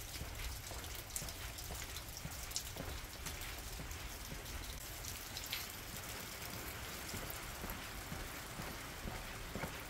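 Light rain falling: an even hiss with a few scattered drips.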